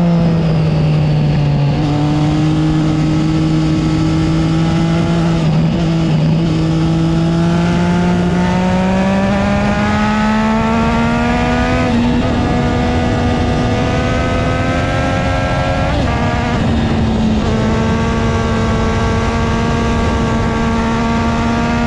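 A Triumph Street Triple 675R's inline three-cylinder engine with a modified exhaust, running under way at speed over wind rush. Its note climbs as the bike accelerates about halfway through, then holds steady, with a few brief dips in pitch.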